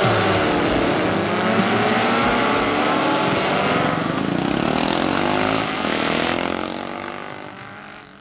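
Racing engines revving, their pitch rising and falling, fading out over the last couple of seconds.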